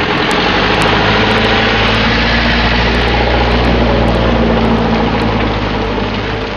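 An engine running steadily and loudly, swelling up at the start and easing off near the end.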